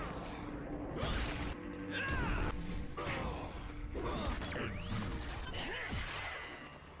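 Cartoon action soundtrack: dramatic background music under sweeping, swooshing energy-blast effects and crashes, changing abruptly every second or two.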